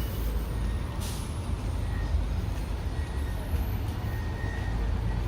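Road traffic passing on a busy street: a steady low rumble of engines and tyres, with a short hiss about a second in.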